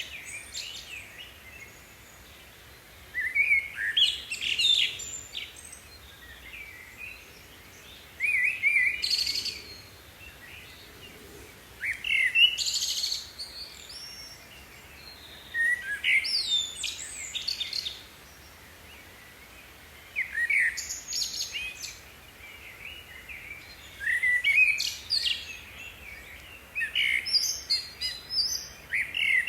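A songbird singing, repeating a short phrase of quick, gliding whistled notes about every four seconds.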